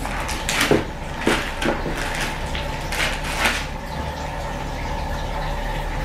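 Plastic packaging crinkling and crackling as a wrapped packet of paper inserts is opened and the papers taken out, with several sharp crackles in the first few seconds, then only a steady low hum.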